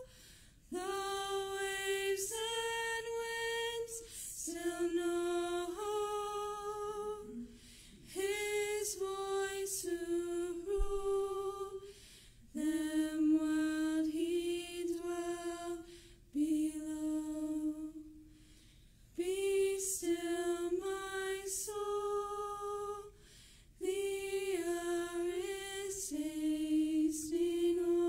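Three women singing unaccompanied: phrases of held notes with short breaks for breath between them.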